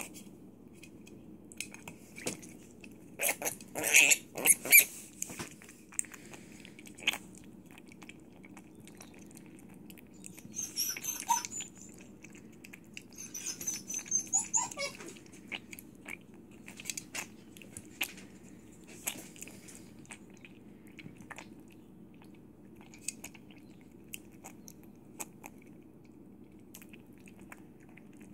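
Three-day-old mini piglet lapping and slurping milk from a saucer: irregular wet smacks and clicks, with louder bursts of slurping about four seconds in and again around eleven and fourteen seconds. A steady low hum runs underneath.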